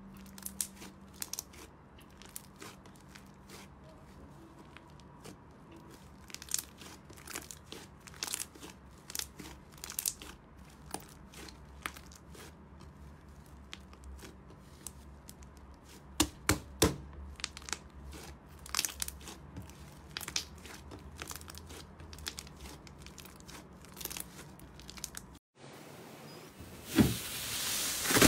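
Hands squeezing, pinching and stretching a large mound of thick white slime: a scatter of small crackles, pops and soft tearing sounds over a faint steady hum. Near the end the sound cuts, and a louder hiss with a few sharp pops follows as a hand presses into another slime.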